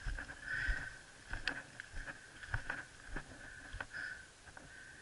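Irregular knocks, clicks and rustles of a mountain bike moving over a dry, leaf-strewn dirt trail, over a steady high-pitched drone.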